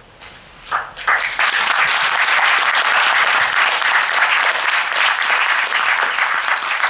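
Audience applauding: many hands clapping, starting about a second in and continuing steadily.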